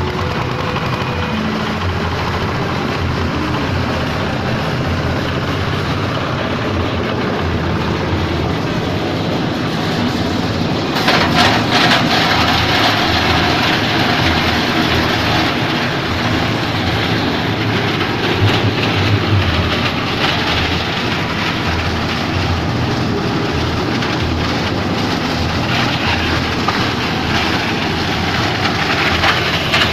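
Plastic shredder machine running with a steady motor drone. About eleven seconds in it turns louder and harsher, with dense crackling over the drone.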